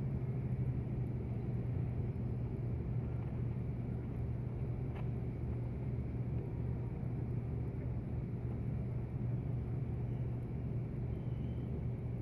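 Steady low outdoor rumble with a constant low hum underneath, with no single clear source; one faint tick about five seconds in.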